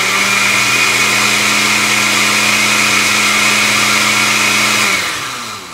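Oster countertop blender motor running at a steady high speed, churning water and dish soap in its jar to clean it. About five seconds in it is switched off and its pitch falls as it spins down.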